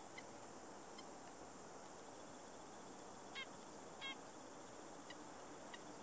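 Red-breasted nuthatch giving a few faint, short nasal calls, the two clearest about three and four seconds in.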